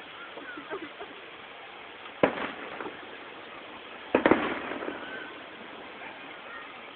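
Two fireworks shells bursting about two seconds apart, each a sharp bang. The second, louder burst has a short run of smaller pops or echo after it.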